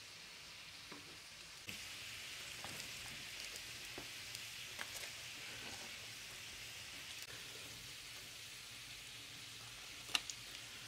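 Hot oil sizzling and crackling in a frying pan as breaded chicken nuggets fry, the sizzle growing louder about two seconds in. A couple of sharp clicks near the end.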